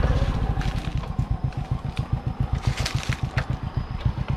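Motorbike engine idling with an even low throb of about nine beats a second, slowly getting quieter, with a few light clicks over it.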